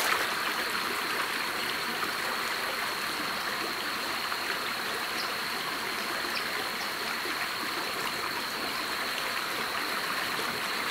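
Shallow rocky stream running steadily over stones, an even rushing without breaks.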